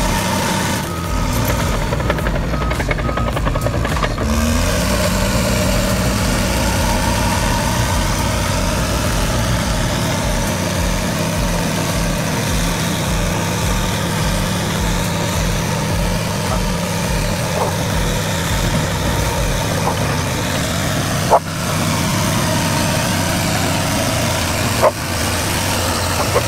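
Heavy diesel engine of a crawler tractor running steadily under work, with two sharp knocks near the end.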